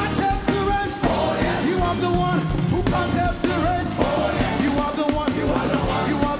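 Live gospel praise music: a band plays an upbeat song with a steady beat while voices sing over it.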